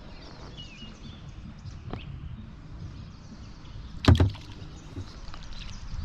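Kayak paddling with a sharp knock about four seconds in, the paddle striking the kayak's hull, and a fainter knock about two seconds in.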